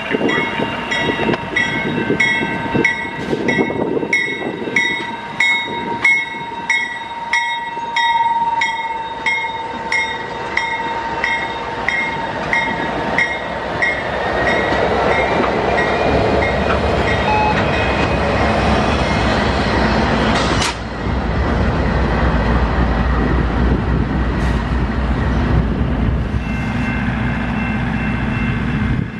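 CN freight train's diesel locomotives passing a level crossing while the crossing bell dings about twice a second. The bell fades out after about ten seconds. A steady, deeper rumble of the passing train follows, with a brief whoosh about two-thirds of the way through.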